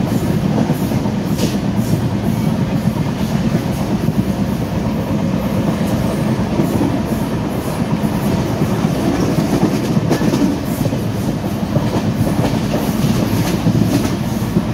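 Moving passenger train heard from an open coach doorway: a steady running rumble of wheels on rails, with irregular clickety-clack from the track.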